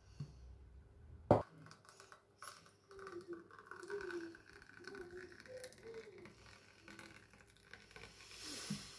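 Thick avocado smoothie pouring slowly from a glass jug into a glass goblet, with a faint gurgling. A single sharp click a little over a second in.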